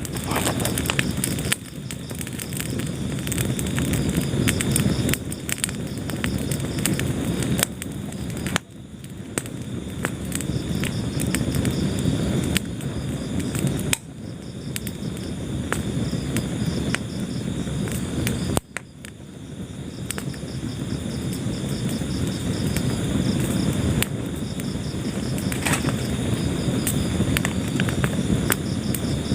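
Wood fire burning in a fireplace, crackling with many sharp pops over a low, steady roar. The sound drops out briefly three times.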